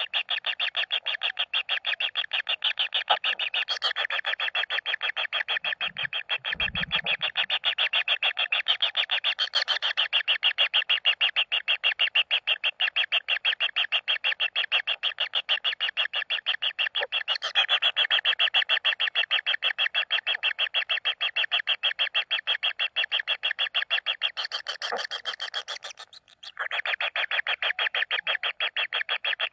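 Kingfisher chicks giving a continuous rapid churring call, about ten pulses a second, that stops briefly near the end. A short low rumble comes about six seconds in.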